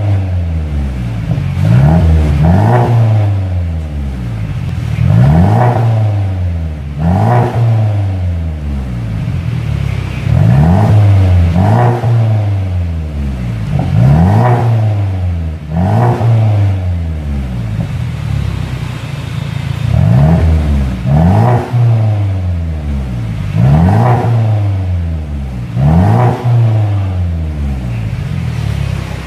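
2018 Mercedes-Benz C300 (W205) 2.0-litre turbocharged four-cylinder, fitted with an aftermarket Armytrix exhaust, revved repeatedly from idle. Each rev rises quickly and falls back to a steady idle, about a dozen times, often two in quick succession.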